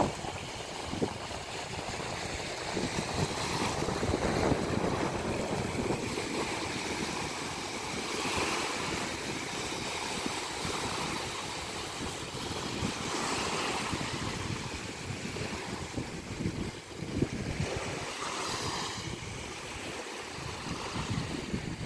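Small sea waves breaking and washing onto a sandy beach, the surf swelling every few seconds, with wind buffeting the microphone.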